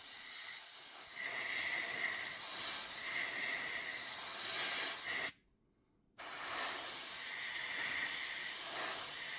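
Iwata Eclipse airbrush spraying paint: a steady hiss of air and atomised paint. It stops dead for about a second just past the middle, then carries on.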